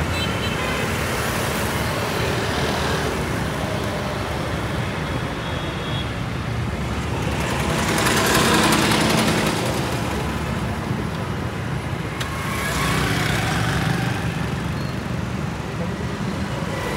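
City road traffic heard from a car: a steady low rumble of engines and tyres, with a passing vehicle swelling loudest about eight to nine seconds in and others passing around twelve seconds and near the end.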